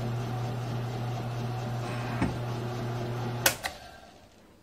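Grizzly G1007 mill-drill motor running with a steady hum and a light thump about two seconds in, then two sharp clicks about three and a half seconds in, after which the motor winds down and stops.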